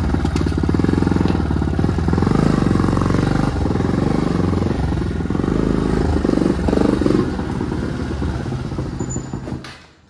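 Motorcycle engine running as the bike is ridden slowly, its pitch rising and falling with the throttle. The engine stops near the end.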